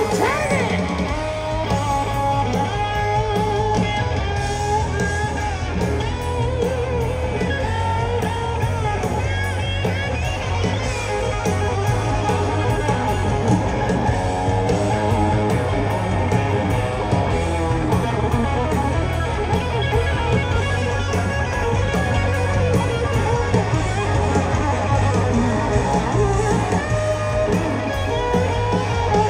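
Live rock band: a Les Paul-style electric guitar plays a lead solo of winding, bending lines over bass guitar and drums.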